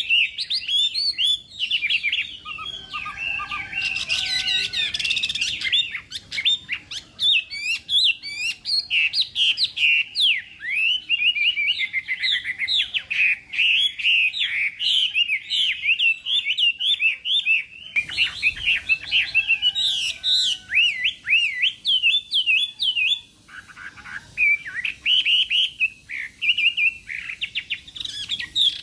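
Chinese hwamei (hoạ mi) singing a long, fast run of varied whistled phrases that sweep up and down, with a short break about 23 seconds in.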